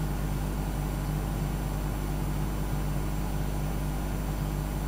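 Steady low hum with a light hiss underneath, unchanging throughout: recording background noise with no distinct events.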